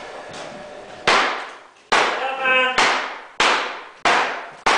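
Repeated heavy blows in demolition work, six hard impacts about one every three-quarters of a second, each ringing out and echoing briefly.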